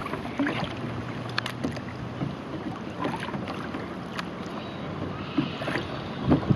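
Double-bladed kayak paddle dipping into calm river water: light splashes and drips from the blades as they enter and leave the water, with a few louder splashes near the end.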